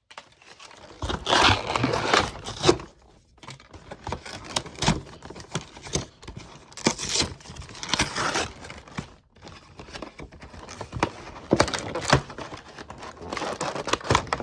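Cardboard Pokémon card collection box being torn and pried open by hand: irregular bursts of tearing, scraping and crinkling.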